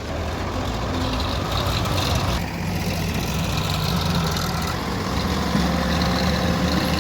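Heavy-machinery diesel engine running steadily with a low hum; its note changes briefly about two and a half seconds in.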